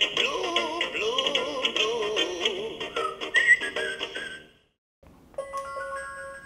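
LeapFrog Butterfly Counting Pal's small built-in speaker playing a children's song about colours: a sung melody over electronic music that stops about four and a half seconds in. After a brief silence a few steady electronic notes start.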